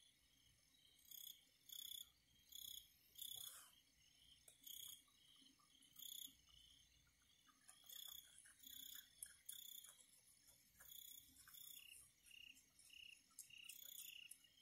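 Night insects chirping, crickets calling in short, high-pitched pulses repeating about once or twice a second, faint.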